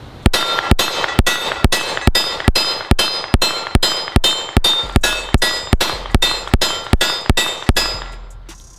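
A rapid string of about eighteen 9mm pistol shots, a little over two a second, with pitched ringing after the shots as steel targets are hit. The string stops shortly before the end.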